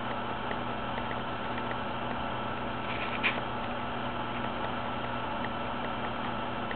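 Steady hiss with a faint low hum. About three seconds in there is one brief soft scrape as fingers handle a small antique-bronze metal filigree stamping.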